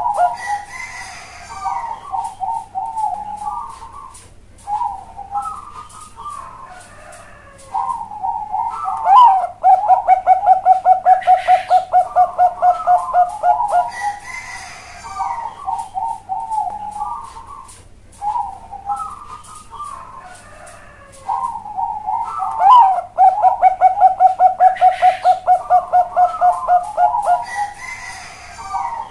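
Zebra dove (Bangkok-bred perkutut) singing its cooing song twice. Each song opens with a few warbled notes and runs into a long, fast string of rolling coos, about four to five a second.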